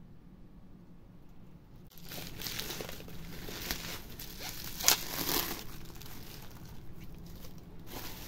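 Bubble wrap and plastic film crinkling and rustling as wrapped wooden boxes are handled in a parcel, starting about two seconds in, with one sharp crackle near the middle.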